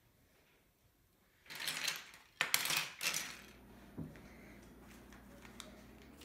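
Loose plastic Lego bricks clattering and rattling as they are rummaged through, in three quick bursts, followed by a single click a second later.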